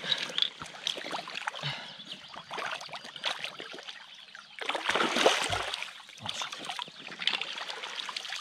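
Shallow river water splashing and trickling around hands releasing an asp, with a louder splash about five seconds in. Near the end, water runs off a landing net lifted out of the river.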